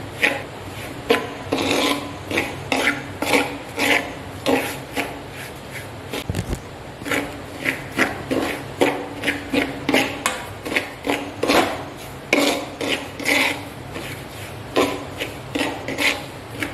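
Metal spoon scraping the bottom and sides of an aluminium pot as grainy semolina is stirred and turned, in repeated rasping strokes about two a second. A faint steady hum runs underneath.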